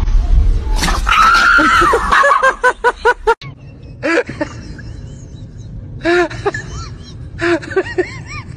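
A dog's loud cry held for about a second, then breaking into quick repeated yelps, about seven a second. After a cut, another dog gives short high whines in clusters over a low steady background.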